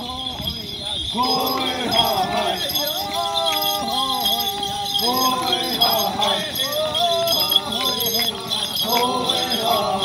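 A group of men chanting a song together in short phrases of held, stepping notes, over a steady jingling of the bells worn on their traditional Amis costumes as they run.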